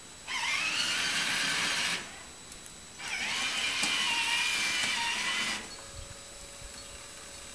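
Electric motors of a prototype robotic snow shovel running in two bursts: a whine that rises in pitch as it spins up, runs for under two seconds, stops, then runs again for about two and a half seconds.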